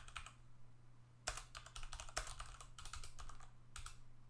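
Computer keyboard typing a file name: quick runs of keystrokes starting about a second in and stopping near the end, over a low steady hum.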